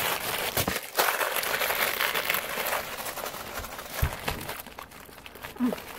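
Plastic snack bags and a candy wrapper being handled, crinkling and rustling densely for the first few seconds and then more sparsely. A single knock about four seconds in, and a short rising-and-falling voice-like sound near the end.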